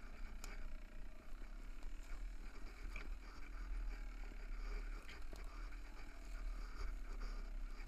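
Off-road bike ridden down a rocky trail: a steady rumble of wind on the microphone under a faint low hum, with a few sharp knocks and rattles as the bike hits stones.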